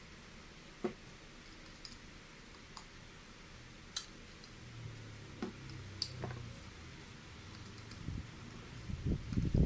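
Scattered small clicks and taps of parts being handled while a screw is fitted to an electric cooker, one every second or so, with duller knocks and handling thumps near the end.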